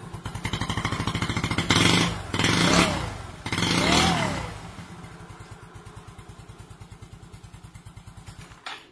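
Motorcycle engine running with a rapid, even firing pulse, revved up and back down three times in quick succession in the first few seconds, then settling back to idle; a short burst near the end.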